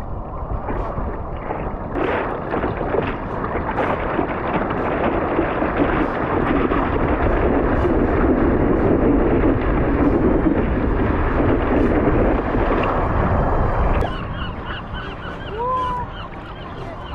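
Water splashing and sloshing against a surfboard as it is paddled, close to a board-mounted camera. From about fourteen seconds in, a flock of gulls calls overhead with short rising and falling cries.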